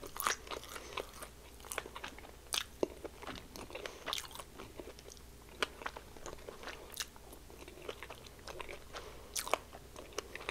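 Close-miked chewing of crispy fried chicken breading, with many sharp, irregular crunches.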